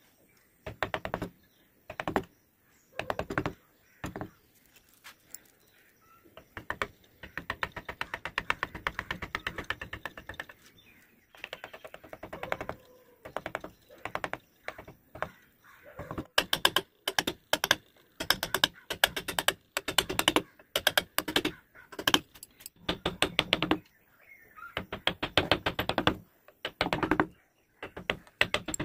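Carving chisel cutting into a wooden relief panel: runs of rapid light clicking taps in bursts of a second or a few seconds, with short pauses between them.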